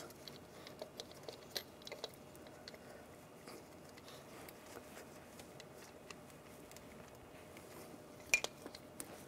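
Faint rubbing and small plastic clicks as a gloved hand pushes an ignition coil down into the spark plug well, with a sharper click near the end.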